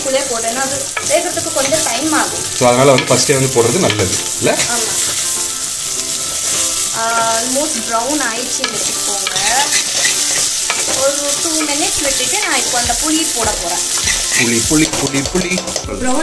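Potato sticks and onions frying in oil in a clay pot, a steady sizzle, while a steel ladle stirs and scrapes through them.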